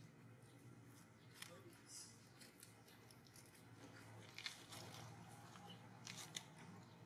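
Near silence: faint outdoor background hum with a few soft, scattered clicks and crackles.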